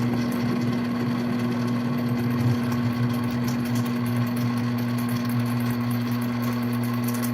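Mini lathe running at a steady speed, its motor giving a constant hum, with a 3/16-inch end mill cutting a workpiece held in a lathe-mounted vise; faint ticking comes from the cut.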